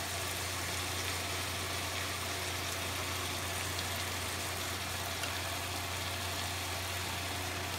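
Pork sizzling softly in a hot cast iron pot, over a steady low hum.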